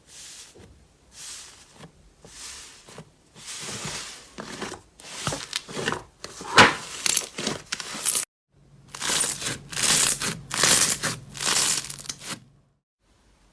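Slime being squeezed and pulled apart by hand, giving a run of crackling, tearing bursts with a short pause in the middle.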